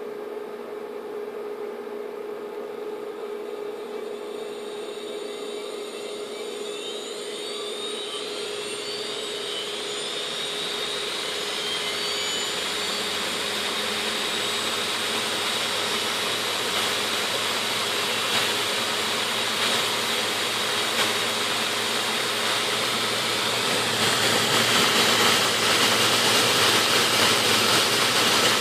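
Seagate Medalist hard drive spindle motor with four bare platters spinning up from low speed on a home-made sensorless BLDC controller: a whine that rises in pitch and a rush of air from the platters that grows steadily louder, stepping up again near the end.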